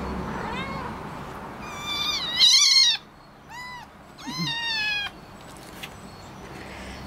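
Young kittens mewing: four high-pitched cries, the loudest and longest a wavering one from about two to three seconds in.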